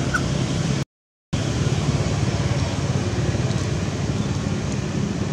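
Steady low rumbling background noise, broken by a sudden half-second dropout to dead silence about a second in.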